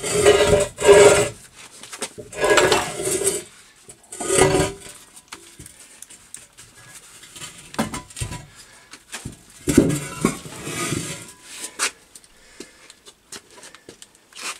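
Heavy finned electric-motor casing dragged and stood upright on a concrete floor: metal scraping and grating in several rough bursts, loudest in the first second or so, with a few short knocks in between.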